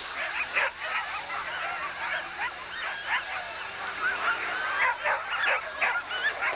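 A pack of sled dogs yelping, barking and howling all at once in a dense, continuous, overlapping chorus.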